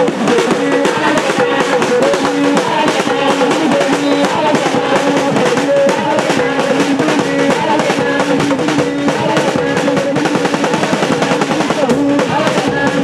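Traditional drumming with an underarm talking drum among other percussion: fast, dense strokes under a melody that steps between a few held pitches.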